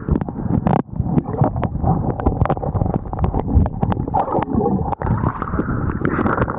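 Muffled water sloshing and bubbling picked up by a camera in the water, with many small knocks against it.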